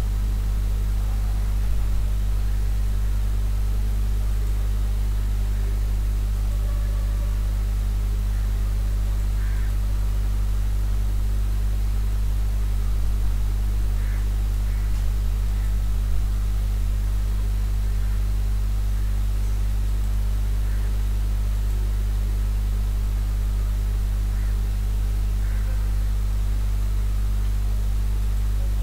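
Steady low electrical hum with an even hiss beneath it: constant background noise in the recording, with no speech.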